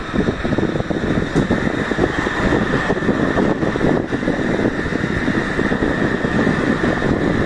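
JR electric commuter train running past on the tracks: a steady, rough rumble.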